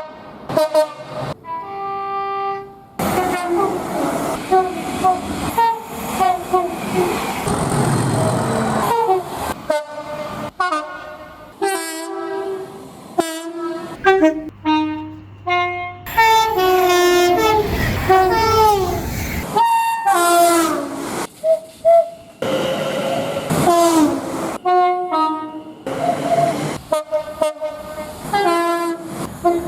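A quick succession of locomotive horn blasts, each a chord of several steady notes, cut abruptly from one to the next. Some blasts fall in pitch, and rail wheel clatter comes through under a few of them.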